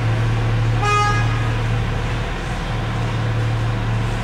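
A short vehicle horn toot about a second in, lasting about half a second, over a steady low engine hum heard from inside a car on a ferry's enclosed vehicle deck.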